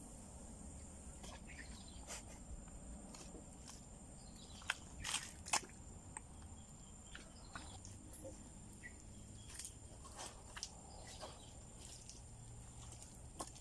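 Quiet outdoor ambience with a faint steady high hum, broken by scattered small clicks and rustles of handling, with a few louder clicks about five seconds in.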